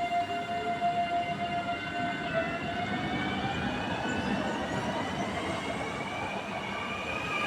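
Train running past with a whine from its drive: a steady tone gives way, about two seconds in, to several tones climbing slowly in pitch together, over a rolling rumble.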